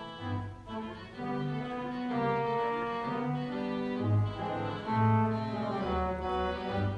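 Theatre pipe organ playing a light piano novelty tune: sustained chords over separate bass notes.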